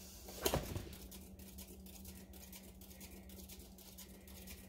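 A brief knock of handling about half a second in as a hand sets a paint-covered surface turning on a spinner, then faint, even ticking while it spins, over a steady low hum.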